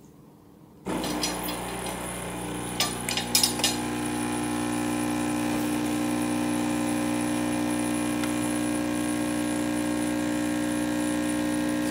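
Oster Prima Latte II espresso machine's pump starting about a second in and running with a steady hum as it brews espresso into a glass cup. A few light clicks come about three seconds in.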